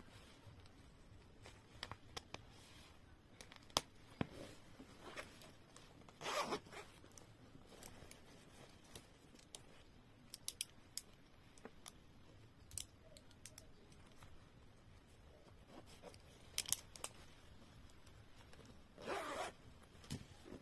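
Zipper on a fabric pouch being pulled, two short rasping strokes about six seconds in and near the end, with scattered light clicks and handling noises between.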